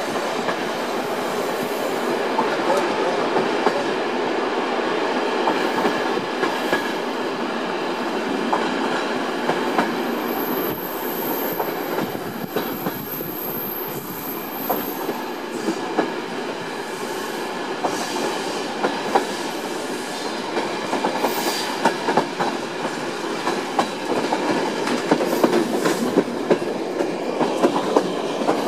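Passenger train pulling out of a station, heard from aboard the carriage: a steady rumble of wheels on the track with clicks over rail joints and switches. The clicks grow louder and more frequent near the end, and a thin high squeal sounds for a few seconds about a third of the way in.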